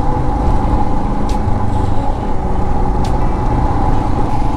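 Royal Enfield Himalayan 411's single-cylinder engine running steadily while riding, with a heavy low rumble of wind on the microphone.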